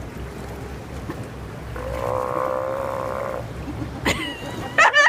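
A sea lion gives one long belch, a pitched call of about a second and a half, about two seconds in. Near the end people burst out laughing.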